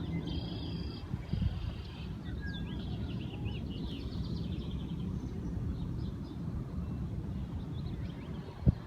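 Small birds chirping in short rising and falling calls over a steady low rumble, with one sharp knock near the end.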